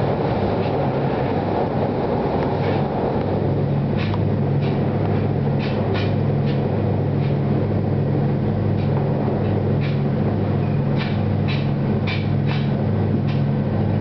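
Passenger train heard from inside the car: a broad rumble while crossing a steel truss bridge fades over the first few seconds. After that comes a steady, low, gently pulsing running hum, with sharp clicks as the wheels pass over rail joints.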